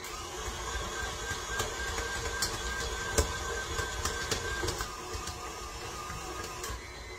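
Electric stand mixer running while it mixes a batch of flour tortilla dough: a steady motor whine with scattered light clicks. The whine drops away over the last couple of seconds.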